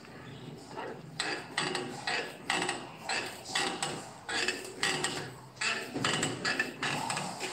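Hand-operated scroll bender clanking metal on metal about twice a second as its long lever is worked, cold-bending a 5/8-inch square steel bar.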